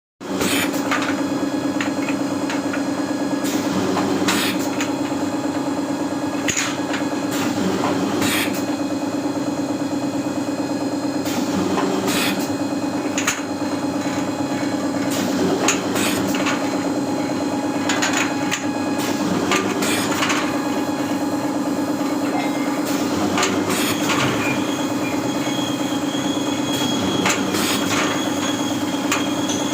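Screen-printing ink-removal machine (rinser) running: a steady motor hum under a hiss, with irregular sharp clicks and knocks.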